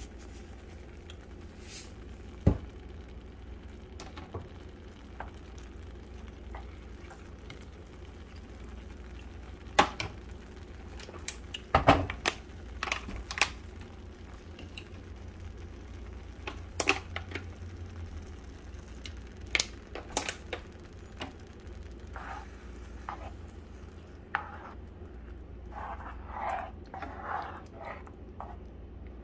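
Flour gravy with liver and onions simmering in a frying pan, with scattered sharp pops and knocks over a steady low hum. Near the end a spoon stirs and scrapes through the thick gravy.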